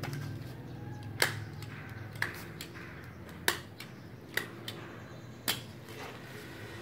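About six sharp clicks or taps at irregular intervals, the loudest about a second in and a little after the middle, over a faint low hum.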